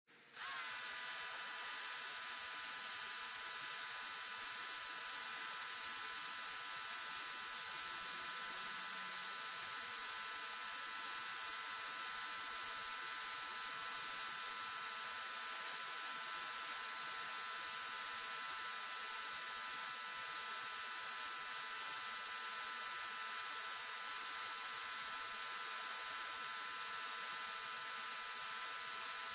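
Portland electric pressure washer running steadily: a constant spray hiss with a steady high motor whine. It cuts in suddenly about half a second in.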